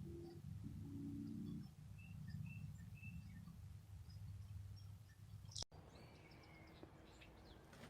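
Faint low rumble of a vehicle running, with a few short, faint bird chirps about two to three seconds in. A sharp click comes about five and a half seconds in, after which only faint hiss and a few chirps remain.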